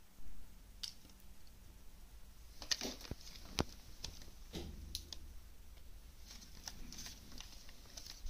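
Irregular light clicks, taps and short scrapes of small objects being handled, the sharpest a little under three and about three and a half seconds in, with a dull knock about four and a half seconds in.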